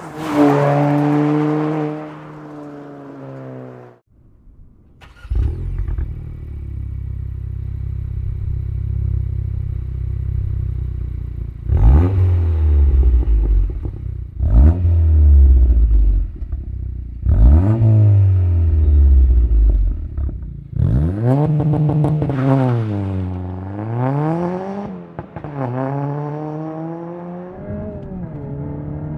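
Honda 1.5-litre turbo four-cylinder (Civic Si / Integra) on aftermarket exhausts. First a rev falls away through a REMARK Sports Touring catback, then, after a brief break, a 27WON front-pipe-back exhaust idles and is blipped three times, each rev rising sharply and dropping back. This is followed by two longer rev sweeps up and down before it settles to a steady note.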